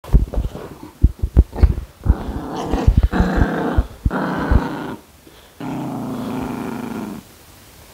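Maltipoo puppy growling in several long stretches while tugging at a slipper held in a hand, after a quick flurry of sharp knocks and scuffles in the first two seconds.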